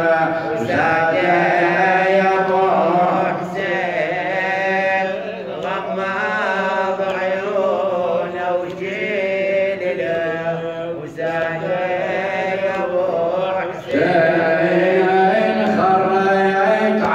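A man chanting an Arabic nawha, a Shia lament, through a microphone. He sings in long melodic phrases with short breaks between them.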